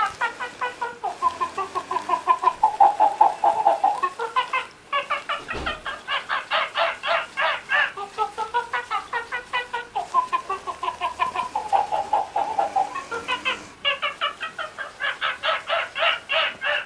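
Battery-operated plush monkey toy playing its recorded sound: a fast string of short, pitched electronic calls, about five a second, rising and falling in pitch. The same sequence plays twice, with brief breaks about five and fourteen seconds in, and stops abruptly at the end.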